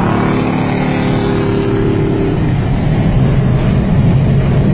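Car driving on a highway, heard from inside the cabin: a steady engine drone over road noise. The drone changes to a lower hum a little over two seconds in.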